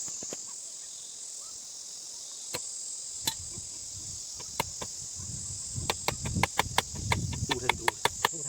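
Steady high-pitched chirring of insects, with sharp taps or knocks over it: a few scattered ones at first, then a quick run of several a second from about six seconds in.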